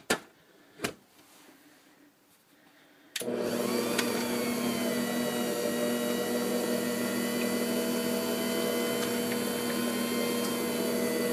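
Electric stand mixer switched on about three seconds in, then running steadily on low speed as it beats eggs and the other custard ingredients. It gives an even motor hum. A couple of knocks come in the first second, before it starts.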